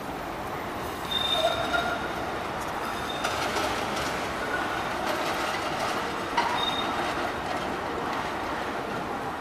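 Milan tram 4916 rolling over the track junction. Its wheels squeal briefly on the curves about a second and a half in and again near seven seconds, with clacks over the rail joints.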